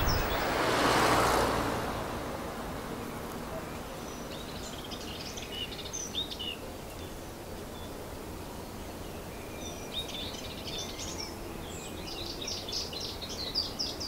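Small birds chirping and singing in two bouts of quick, high calls over a low steady background. A brief rush of noise swells and fades in the first two seconds.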